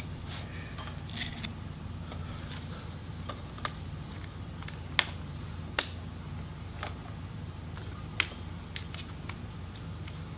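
Scattered small sharp clicks of a plastic pry tool and fingers working the ribbon-cable connectors and their flip-up retainers on a MacBook Pro logic board, about eight spread out with the two loudest near the middle, over a steady low hum.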